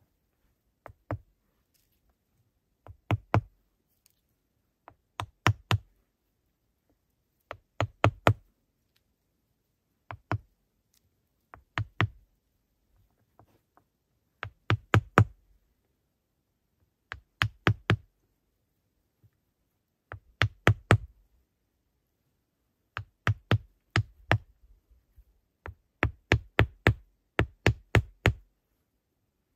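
Repeated sharp knocks, coming in quick groups of two to four strikes about every two to three seconds, with the groups more frequent near the end.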